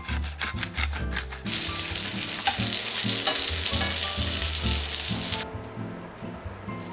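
Food frying in a hot pan, sizzling and crackling. The sizzle jumps louder about a second and a half in and cuts off suddenly about four seconds later.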